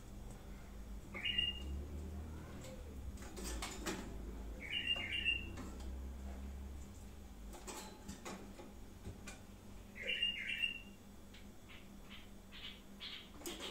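Budgerigar mimicking a bulbul's call with short whistled notes: one call, then two pairs of calls, then a quick run of short chirps near the end. A few sharp clicks come in between.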